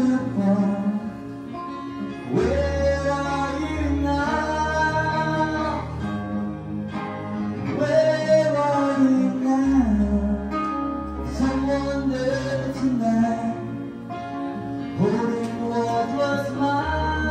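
Live band: a man singing through a microphone, accompanied by acoustic guitar and electric keyboard. The voice holds long notes that slide in pitch over a steady chordal backing.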